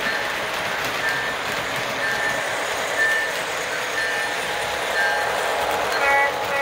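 O-gauge three-rail model train running past, a steady rushing rumble of wheels on track and motor, with a short high electronic beep about once a second. Near the end the diesel locomotive's horn sounds two short toots.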